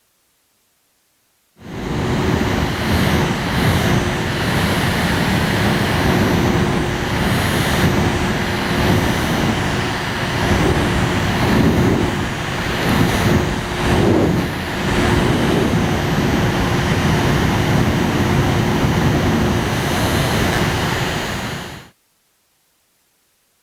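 Electric fan or blower running steadily: a loud rush of moving air with a steady hum. It starts abruptly about a second and a half in and cuts off abruptly near the end.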